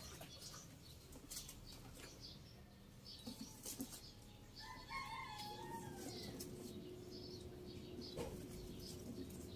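Faint rustling and light handling noises as the potted plant's leaves and nursery bag are moved. A rooster crows once, faintly, about five seconds in.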